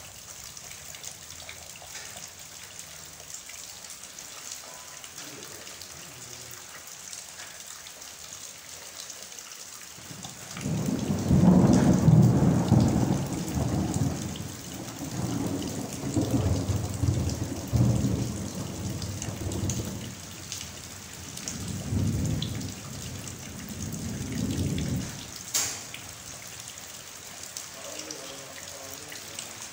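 Heavy rain falling steadily. About ten seconds in, a long rolling rumble of thunder breaks in, loudest at its start, then rolls on in several swells for about fifteen seconds before dying away under the rain. A single sharp click comes just after it fades.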